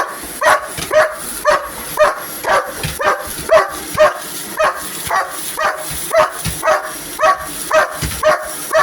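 Dog barking repeatedly at a vacuum cleaner, about two sharp barks a second without a break, over the steady high whine of the running vacuum.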